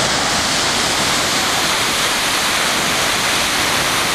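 Heavy ocean surf: waves breaking and white water washing in, a steady loud rushing noise with no single crash standing out.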